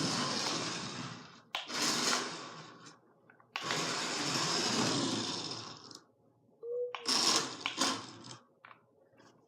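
Small electric motor of a cheap toy remote-control car whirring in stop-start runs as it is driven: three runs of one to two seconds each, then a few short sharp clicks and knocks about seven seconds in.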